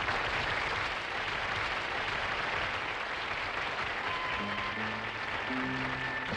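Studio audience applauding. About four and a half seconds in, instrumental music starts up under the applause.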